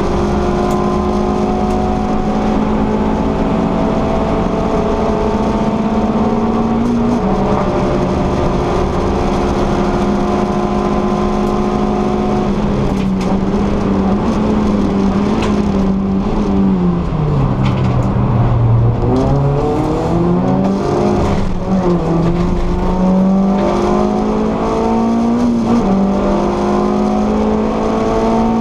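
VW Lupo GTI Cup car's 1.6-litre four-cylinder engine heard from inside the cabin at racing speed, held high in the revs with road and wind noise. About two-thirds of the way through the engine note falls steeply, then climbs again in a series of rising sweeps and steps as the car accelerates back up through the gears.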